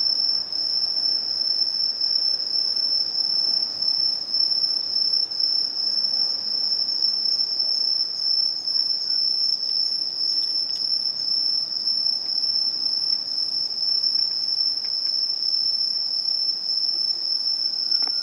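Crickets singing in a steady, unbroken high trill.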